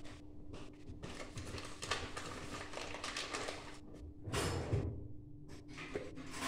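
Kitchen handling noises: a spice jar and utensils being handled on the counter, with irregular rustling and scraping and a louder scrape about four and a half seconds in, over a steady low hum.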